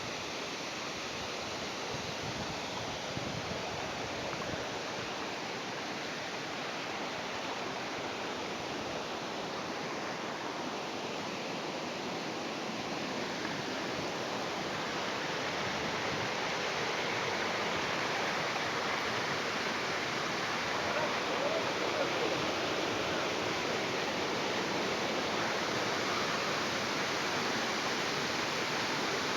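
Steady rush of falling water from a waterfall, getting somewhat louder about halfway through.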